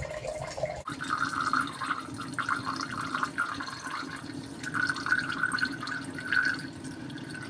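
Hydrochloric acid pouring into a glass beaker of water around rusty steel bolts, the stream of liquid filling the beaker from about a second in.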